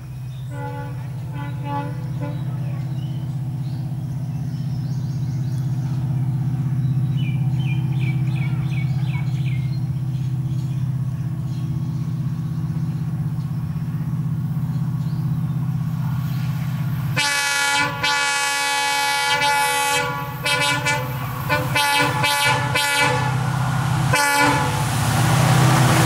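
EMD WDP-4 diesel locomotive approaching at speed, its engine a steady drone that grows louder throughout, with birds chirping briefly in the first third. About two-thirds in, the locomotive's air horn sounds a long blast, followed by a string of short blasts as the train draws near.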